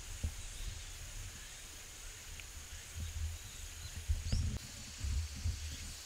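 Outdoor ambience: a steady high insect drone with uneven gusts of wind rumbling on the microphone, and one short rising chirp a little over four seconds in.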